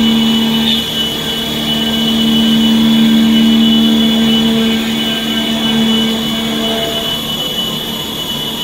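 5-axis CNC trunnion machining center roughing: spindle and cutter taking a heavy cut, a steady low hum under a high whine, wavering slightly in level.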